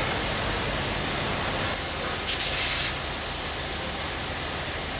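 Class A1 Pacific steam locomotive No. 60163 Tornado hissing steam, a steady hiss with one louder, short blast of steam about two and a half seconds in.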